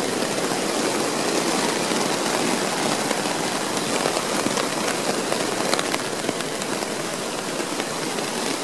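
Steady downpour on a silicone-coated Argon tarp, heard from underneath: an even hiss of rain on the taut fabric overhead, with a few sharper ticks of single drops.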